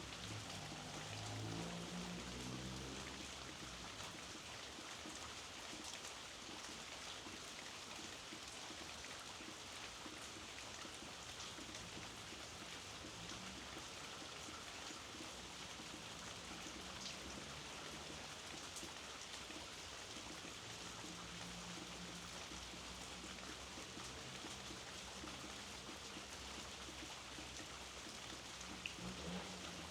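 Steady rainfall, drops pattering on outdoor surfaces in an even hiss, with a faint low hum at the start and again about two-thirds of the way through.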